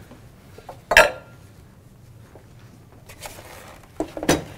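Kitchen bowls and utensils knocking on a counter: one sharp clink about a second in, ringing briefly, then a couple of lighter knocks near the end.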